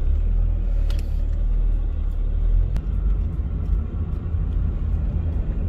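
Steady low rumble of a car on the road, heard from inside the moving car's cabin, with a couple of faint clicks.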